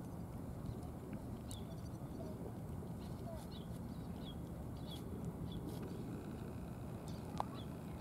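Steady outdoor background noise with faint, short high-pitched chirps scattered about once a second, and a small click near the end.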